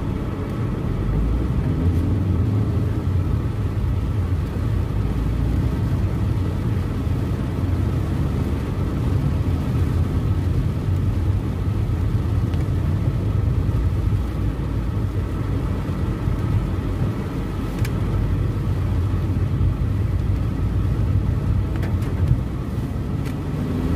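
Steady low rumble of a car driving, heard from inside the cabin: engine and tyre noise, with a couple of faint clicks near the end.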